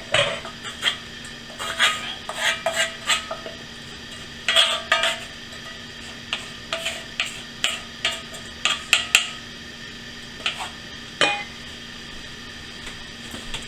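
Wooden spatula scraping cooked vegetables out of a cast iron skillet into a stainless steel mixing bowl: irregular scrapes and knocks of wood and iron against metal, stopping shortly before the end.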